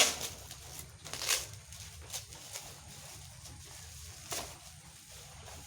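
Handling noises: a few short, sharp rustles or clicks, the loudest right at the start and others about a second and a half and four seconds in, over a low steady hum.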